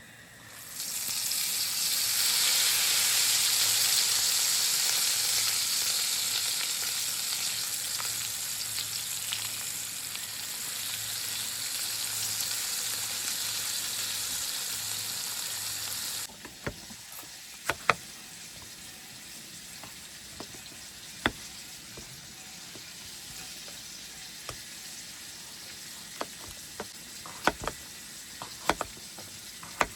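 Flour-battered crappie fillets sizzling as they fry in hot oil: a loud, steady sizzle that starts about a second in. About halfway through it drops off abruptly, leaving a quieter hiss with scattered sharp clicks.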